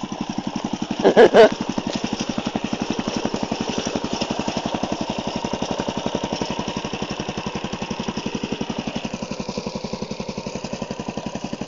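Small engine of a homemade go-kart running steadily with an even pulsing beat. Two short, loud bursts come about a second in.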